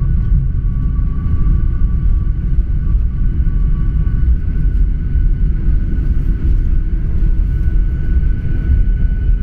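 Boeing 737-800 cabin noise with the engines running: a steady, loud low rumble with a faint, even whine above it.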